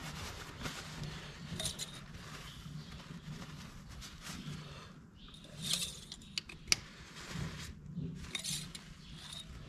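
A tractor engine's metal oil dipstick being handled, wiped on a paper towel and slid back into its tube to read the oil level: soft paper rustling and a few small metallic clicks, the sharpest a little past halfway.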